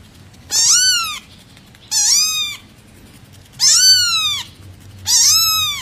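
Silver tabby kitten meowing four times, about one and a half seconds apart, with high, thin calls that each rise and then fall in pitch.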